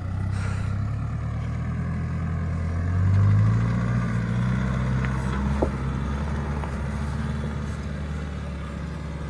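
Off-road vehicle engine pulling steadily up a dirt track, swelling louder and higher about three seconds in, then settling back to a steady run, with a single knock a little past halfway.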